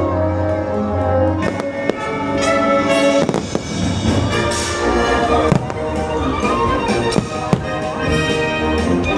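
Fireworks bursting with several sharp bangs over loud orchestral music of a fireworks show soundtrack.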